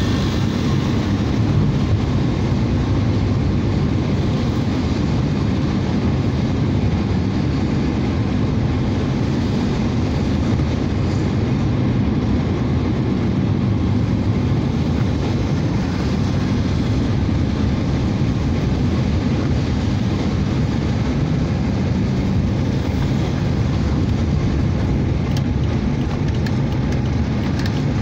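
Steady low rumble of a car's engine and tyres on a wet road, heard from inside the moving car's cabin.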